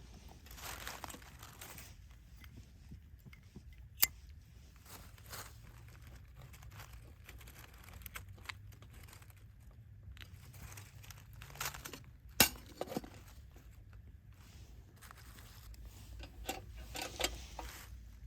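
Crinkling and rustling of camping gear being handled and unpacked, with scattered small knocks and two sharp clicks, one about four seconds in and one about twelve seconds in.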